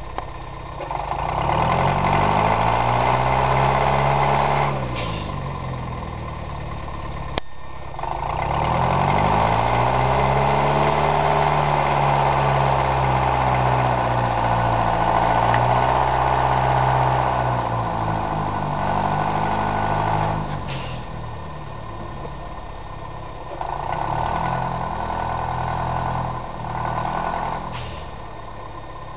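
Narrow-gauge locomotive #52's engine working hard as it plows through deep snow: it revs up, holds and falls back three times, the longest pull lasting about twelve seconds. A sharp click comes about seven seconds in.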